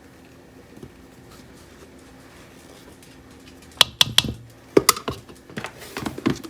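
Quiet kitchen for a few seconds, then a run of sharp clicks and clinks and some lighter clattering: kitchen utensils knocking against a mixing bowl as flour is measured out for a biscuit-style shortcake dough.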